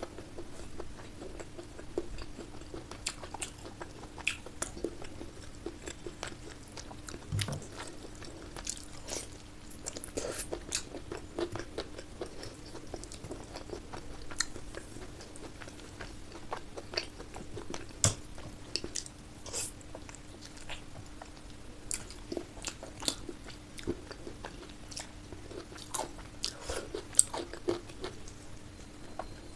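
Close-miked eating of curry and rice: chewing with irregular wet mouth smacks and clicks, now and then a bite or crunch, over a steady faint hum.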